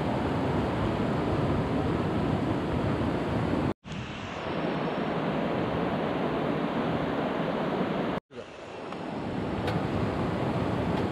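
Steady rushing of a hill stream's flowing water, cut to silence twice for a moment and fading back in each time.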